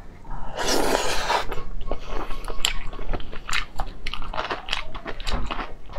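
Mouth sounds of eating grilled oysters: a loud noisy burst about half a second in as an oyster goes into the mouth, then chewing with many small wet clicks and smacks.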